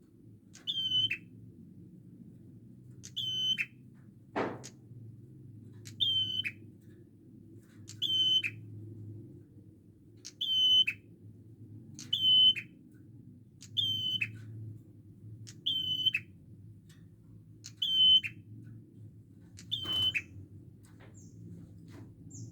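A prenjak bird calling over and over: about ten short, sharp, high-pitched calls roughly every two seconds, each a bright note that drops quickly. A couple of sharp clicks fall in between, over a steady low hum.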